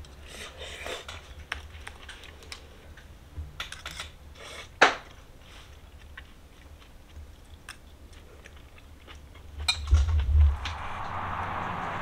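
A fork clinking and scraping on a plate with chewing, with one sharp clink about five seconds in. Near the end come a few dull thumps, then a steady outdoor background noise sets in.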